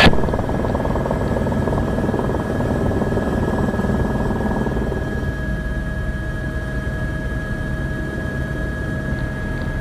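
Police helicopter's rotor and turbine engine noise, a steady drone with a thin high whine held throughout.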